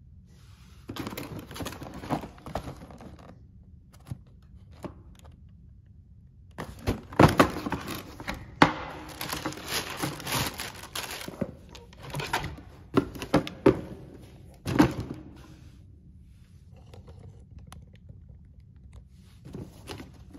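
A sneaker box being handled and opened: irregular bursts of paper crinkling and rustling, broken by several sharp cardboard knocks and thunks, with short pauses between.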